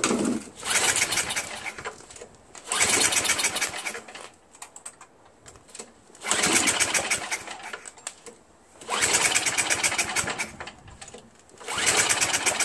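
The recoil starter of a Craftsman 524 snowblower's 5 hp Tecumseh engine is pulled five times, about every three seconds. Each pull spins the engine over with a fast ticking whirr that dies away without the engine catching. The compression is very low, which the owner suspects is a blown head gasket.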